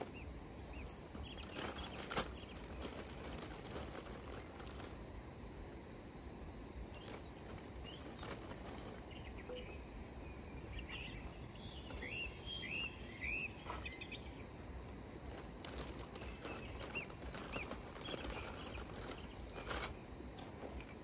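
Outdoor dusk ambience: insects droning steadily on one high note, with a run of short bird chirps in the middle. Scattered sharp clicks and knocks, the loudest about two seconds in, come from wood sticks being handled and set alight in a small tin stove.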